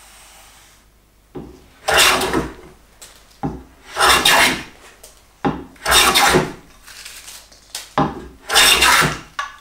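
Hand plane with a heavily cambered iron taking four strokes along a rough-sawn board, each stroke a coarse scrape of about a second, about two seconds apart, with a short click at the start of each as the blade bites. It is quick stock removal, taking off the rough-sawn surface.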